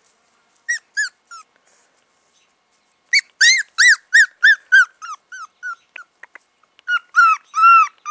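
American Eskimo Dog puppy crying in high-pitched whimpers. There are two short cries about a second in, then from about three seconds a quick run of about three cries a second, ending in a few longer wails.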